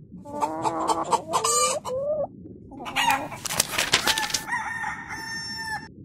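Rooster clucking and crowing: a run of short, bending calls, then a second burst that ends in a long, held crow.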